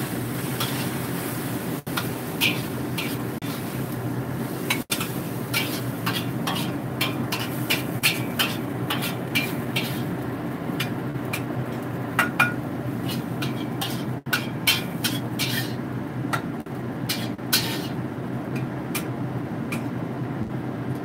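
Metal spatula scraping and knocking against a wok while stir-frying bean sprouts and chives: quick irregular clicks and clanks, busiest in the middle, over a steady low hum.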